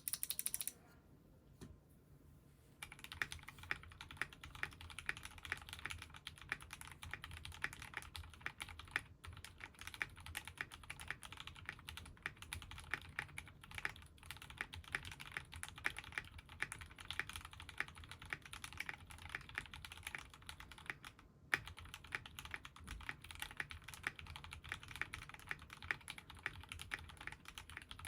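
Typing on a GAMAKAY K61 Pro 60% gasket-mounted mechanical keyboard with lubed Gateron Milky Yellow linear switches, a creamy sound: a steady stream of keystrokes that begins about three seconds in and pauses briefly about two-thirds of the way through. A short loud noise comes right at the start, before the typing.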